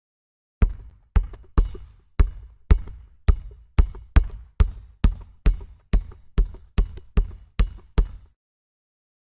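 A basketball being dribbled on a hard court in a steady rhythm, about two bounces a second. Each bounce is a sharp, deep thud with a short echoing ring. The bouncing runs for about eight seconds and then stops.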